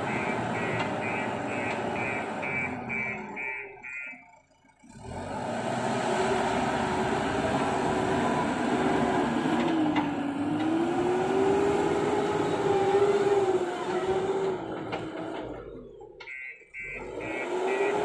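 JCB backhoe loader's diesel engine running and revving up and down as the machine drives with a loaded front bucket. Its reversing alarm beeps rapidly, about three beeps a second, at the start and again near the end. The sound drops out briefly twice.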